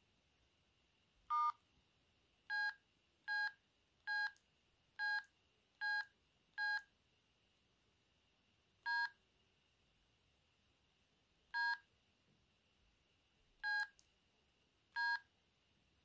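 Sendo S360 mobile phone's keypad tones: eleven short two-tone beeps as keys are pressed. Seven come in quick succession, then four more at longer, uneven gaps.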